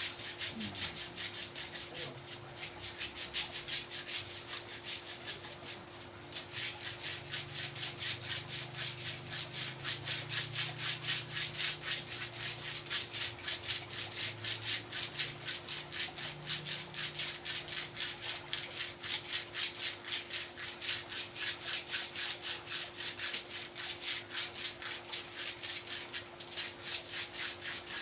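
Rapid, rhythmic rubbing strokes of a massage on a patient's body, several strokes a second, going on without a break.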